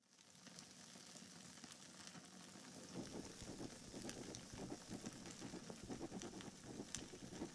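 Faint crackling over a steady hiss, with scattered clicks; the crackle grows a little busier and louder about three seconds in.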